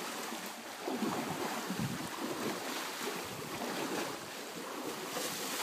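Elephants wading through a shallow muddy stream, water splashing and sloshing around their legs, with wind buffeting the microphone.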